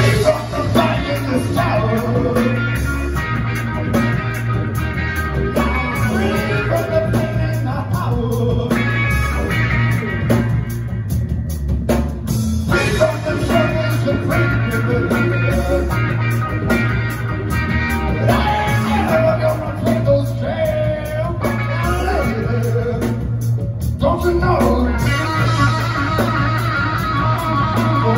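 Live rock band playing: distorted electric guitars, bass and a full drum kit keeping a steady beat, heard loud from the audience.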